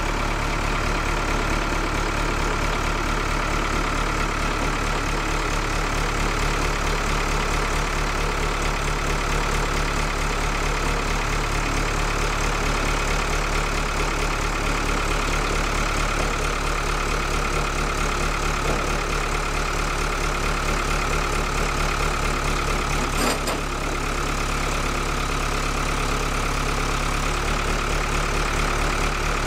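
Lull telehandler's diesel engine running at a steady idle-like speed while it creeps its forks up to a loaded trailer, with a single short clank about three quarters of the way through.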